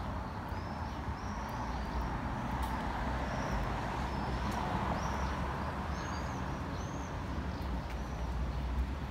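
City street traffic: a steady rumble of road vehicles that swells a little in the middle as traffic passes. Small birds chirp repeatedly above it, short high calls.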